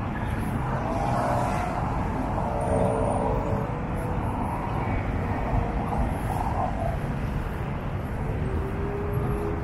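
Steady rumble of city street traffic, with faint engine tones from passing vehicles.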